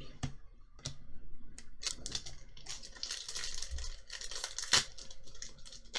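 Foil Pokémon booster pack wrapper crinkling and tearing as it is opened by hand, with scattered clicks and one louder click about five seconds in.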